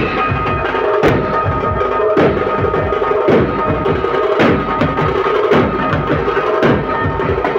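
Nashik dhol ensemble playing: large dhol drums beaten with sticks in a fast, dense rhythm, with a heavy accented stroke about once a second. A few steady tones sound underneath the drumming.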